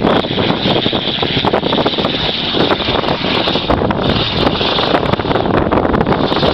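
Mud-covered pickup truck's engine running loud as it drives through a mud pit, mixed with wind rumbling on the microphone.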